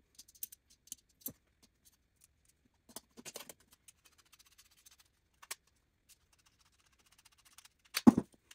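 Scattered light clicks, taps and rattles of small metal parts being handled as VEX motors are screwed onto a perforated metal C-channel, with a louder knock near the end.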